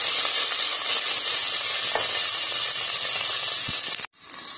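Chopped small onions and green chillies sizzling in hot oil with mustard seeds in a pressure cooker, stirred with a wooden spatula. The sizzling cuts off abruptly about four seconds in and comes back quieter.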